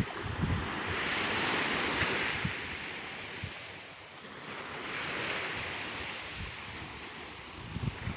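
Sea waves breaking and washing up the beach, the surf swelling and fading in slow surges every few seconds, with wind gusting on the microphone.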